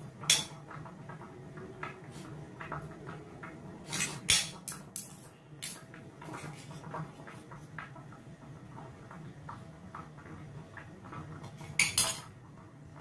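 Metal fork and spoon tapping and scraping on a ceramic dinner plate while eating, with a run of small taps and a few sharper clinks, the loudest pair near the end.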